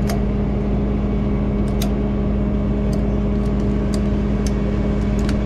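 Rollback tow truck's engine running steadily with a constant hum. A few scattered sharp metallic clicks come from the wheel-strap ratchet and hook as it is handled on the steel deck.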